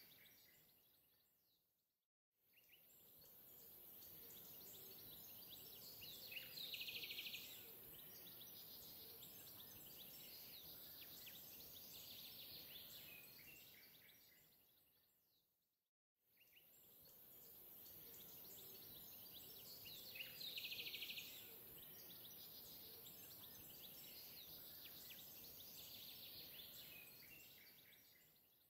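Faint outdoor ambience of birds chirping and calling over a steady hiss. It is a looped background track that fades out and back in and repeats the same stretch about every fourteen seconds.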